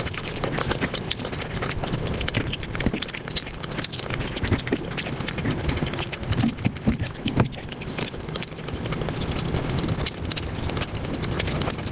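Close-miked eating sounds sped up to five times speed: chewing, crunching and smacking turned into a dense, rapid chatter of clicks and crackles.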